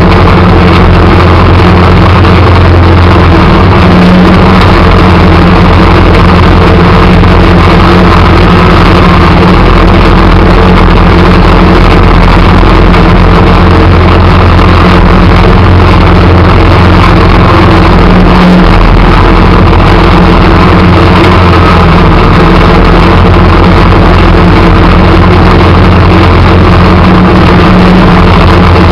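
A vehicle engine runs loud and steady, its pitch unchanging, while the vehicle plows snow.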